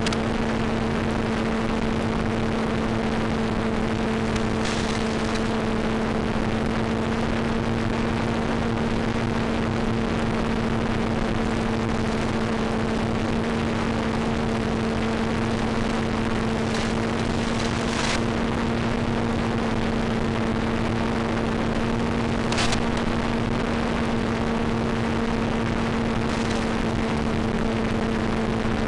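Steady hiss with a constant low hum from the audio channel of an analog FPV video downlink, broken by a few brief crackles about 5, 18 and 23 seconds in.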